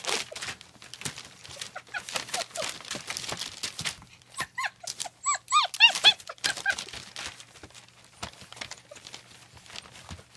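German Shepherd puppies whining in short, high, arching cries, with a cluster of them about halfway through, over scuffling and clicking.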